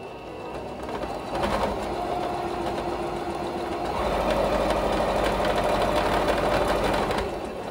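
Singer Fashion Mate sewing machine running and stitching with a fast, even mechanical rattle. It runs louder from about four seconds in, then stops shortly before the end.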